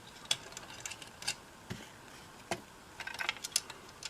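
Irregular light metallic clicks and taps of small hex nuts being handled and tried on the threaded bushings of potentiometers, with a quick cluster of clicks near the end.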